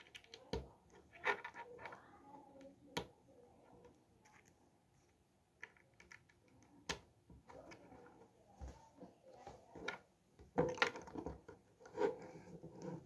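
Plastic Lego bricks being handled and pressed together by hand: irregular small clicks and snaps with light clatter, busiest near the end.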